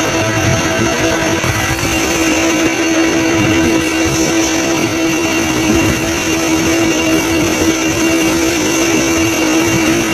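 Background music led by guitar, over a steady droning tone.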